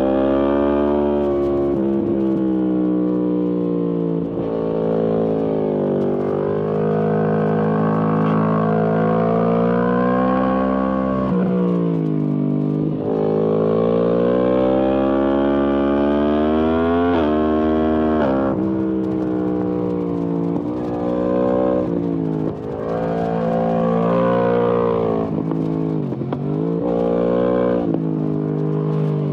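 Yamaha MT-10 SP's crossplane inline-four running through an Akrapovic exhaust under repeated acceleration and easing off. The engine note climbs steadily with the revs, then drops sharply several times as the throttle closes or gears change.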